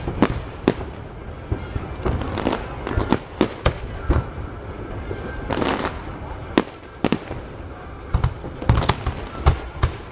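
Fireworks display: a rapid, irregular series of sharp bangs and crackles from aerial shells bursting, some in quick clusters.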